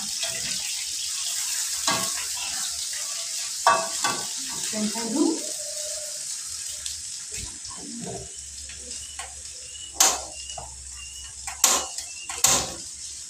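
Food sizzling in a frying pan on a gas stove, a steady high hiss, while a metal spoon stirs a steel pot and knocks sharply against it about five times.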